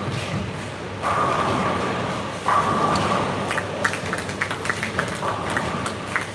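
Bowling balls rolling down the lanes with a low rumble, then pins clattering in a quick run of sharp knocks from about three and a half to five seconds in. A steady high hum switches on and off behind it.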